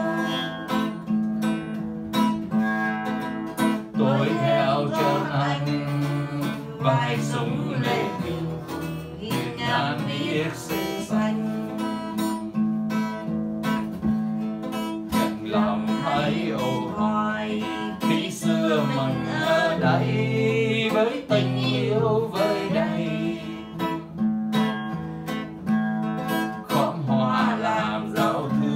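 Acoustic guitar strummed and picked in a slow, steady accompaniment, played as an instrumental passage between sung verses.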